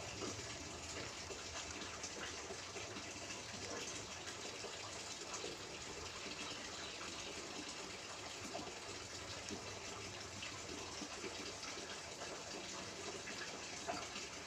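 Steady rushing noise, even and unbroken, much like running water.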